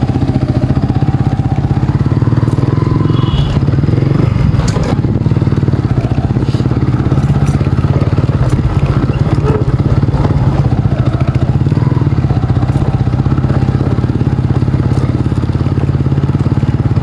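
Motorcycle engine running steadily, heard from the rider's seat, with a few short knocks from the bike jolting over a rough dirt track.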